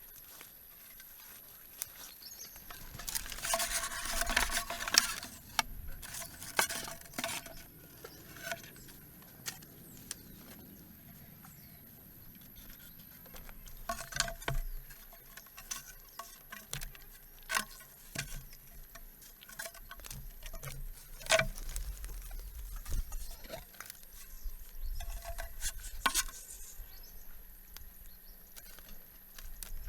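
Irregular taps, clicks and scrapes of things being handled, with a denser stretch of scraping a few seconds in.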